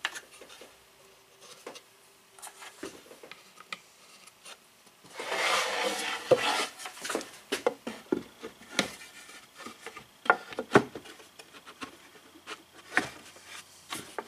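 Plywood speaker-cabinet panels being worked together by hand as a side panel is pushed onto its biscuit joints: scattered knocks and taps of wood on wood, with a longer scraping rub about five seconds in.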